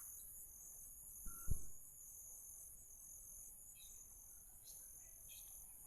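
Crickets and other night insects trilling steadily and high-pitched, with a single low thump about one and a half seconds in.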